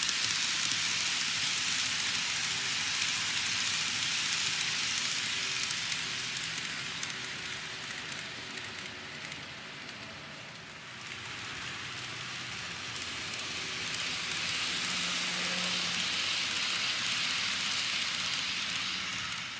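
KATO N-gauge 485-series model train rolling over plastic viaduct track: a steady, hissing rattle of small wheels on rail. It fades away about halfway through as the train moves off round the curve, then grows louder again as it comes past once more.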